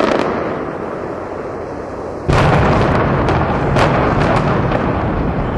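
Explosive blasts: the rumble of one boom fades at first, then a second loud boom hits a little over two seconds in, followed by several sharp cracks over a deep rumble that slowly dies away.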